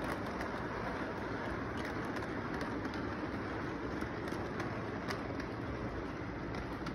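Model freight train cars rolling along the track, a steady rolling noise with scattered faint clicks of the wheels over the rails.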